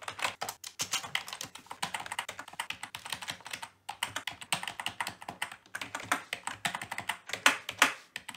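Computer keyboard typing: a fast run of keystrokes, with a short pause about four seconds in and a few louder strokes near the end.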